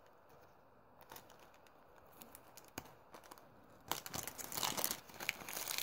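Small clear plastic bag crinkling and rustling as hands work it open: a few faint clicks at first, then continuous crinkling from about four seconds in.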